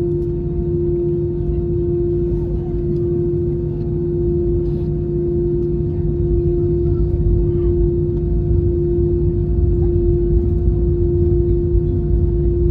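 Airbus A321 cabin noise after landing: the engines running at idle with a low rumble and a steady hum.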